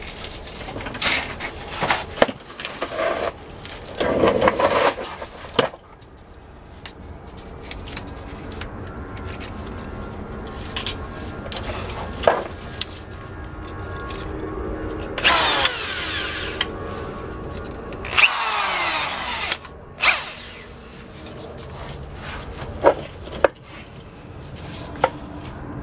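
Cordless drill run in short, uneven bursts, trying to drill out a broken bolt seized in the output shaft of an NP249 transfer case, with sharp clicks and knocks of handling between bursts. The two longest bursts come past the middle, the second winding down with a falling whine as the motor stops.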